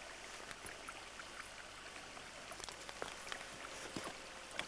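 Faint trickle of a small stream running over stones, with scattered light ticks.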